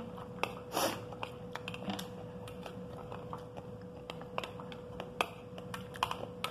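Eating pomegranate arils: irregular small clicks and crunches from chewing the hard seeds and a metal spoon against a glass plate, over a faint steady hum.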